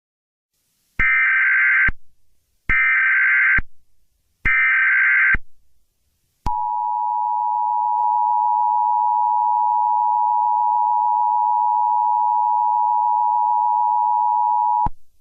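Emergency Alert System broadcast tones: three one-second bursts of SAME digital header data, then after a short gap the steady two-tone EAS attention signal, held for about eight seconds before cutting off near the end.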